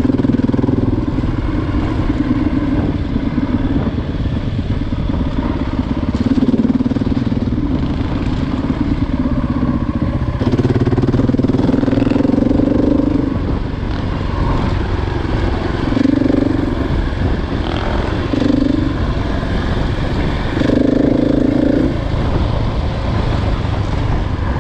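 Single-cylinder four-stroke KTM 500 EXC-F dirt bike engine running while riding a gravel trail. The engine note swells in several spells of a second or two as the throttle is opened, then drops back between them.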